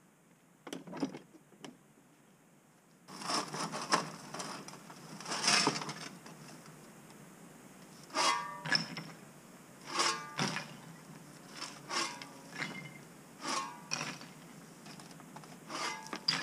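Metal shovel scooping demolition rubble and tipping it into a farm trailer, a scrape and clatter repeated about every two seconds. A few faint knocks come first, before the shovelling starts.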